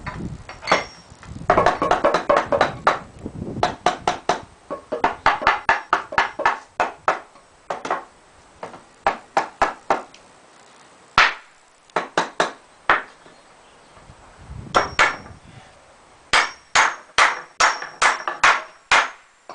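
A hammer driving nails into wooden boards: runs of sharp strikes, about three to four a second, broken by short pauses, with a brief clatter of handling near the start and again about two thirds of the way through.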